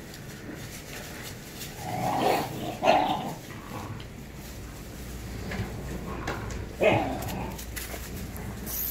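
Rottweiler puppies giving a few short barks during a tug-of-war over a toy, three louder barks coming about two, three and seven seconds in: rough-and-tumble play.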